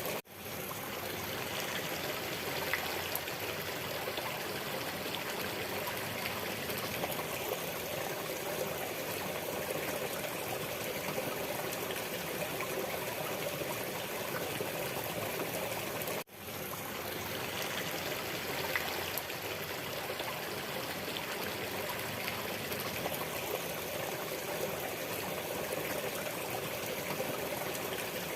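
Waterfall water rushing and splashing steadily. The sound cuts out briefly twice, just after the start and about sixteen seconds in, and swells straight back.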